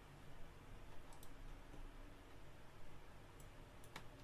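A few sharp computer mouse clicks over faint room noise, the loudest just before the end, as parts are selected in CAD software.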